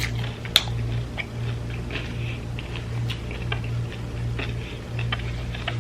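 Close-miked eating sounds: food being chewed, with scattered small clicks and crackles. A steady low hum runs underneath.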